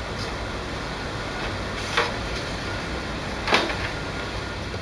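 Plastic scanner lid of an HP OfficeJet 5230 all-in-one printer being handled and shut over the glass: a light knock about two seconds in, then a louder closing knock a second and a half later.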